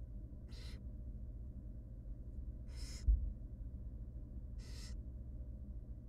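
Barn owl nestlings' raspy begging hisses: three short hisses about two seconds apart, over a steady low hum. A low thump about three seconds in.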